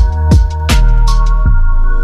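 Electronic background music with a steady beat of deep kick drums that drop in pitch, crisp high ticks and held synth chords.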